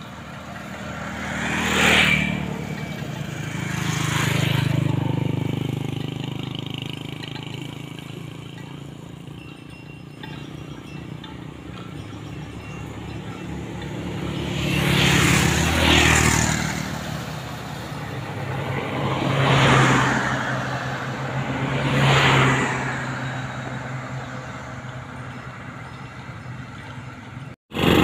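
Motorcycles passing on a paved road one after another, each engine and tyre noise rising as it approaches and fading as it goes by, about six passes in all, with two close together around the middle.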